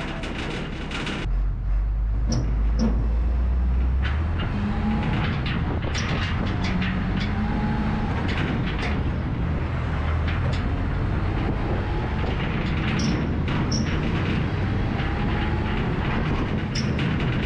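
A truck towing a flatbed equipment trailer loaded with a skid steer loader: a steady low rumble of engine and road, with the trailer and its load clanking and rattling in frequent sharp knocks. The rumble comes in suddenly about a second in.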